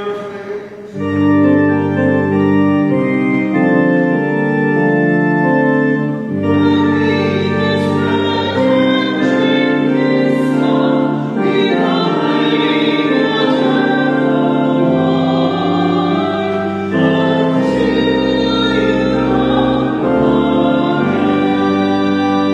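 Church organ playing held chords, changing every few seconds, with voices singing over it: a sung acclamation of the Mass.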